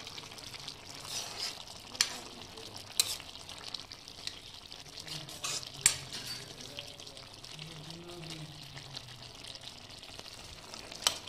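Food frying in a pan with a steady sizzle while it is stirred, the utensil knocking sharply against the pan a few times.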